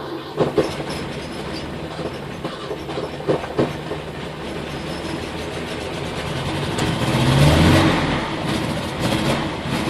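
ZAZ-968's air-cooled V4 engine catching suddenly and running, the revs rising about seven seconds in and easing off again. A start after the car has stood unused for a long time.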